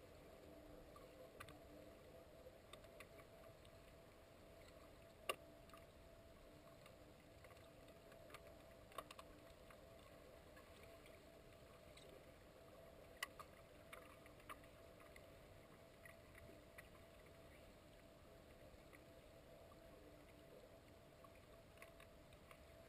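Near silence underwater in a swimming pool: a faint steady hum with scattered sharp clicks, the loudest about five and thirteen seconds in.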